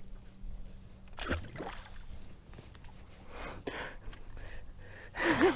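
A small northern pike dropped over the side of a boat into the water, a single short splash about a second in, with faint water sloshing around it.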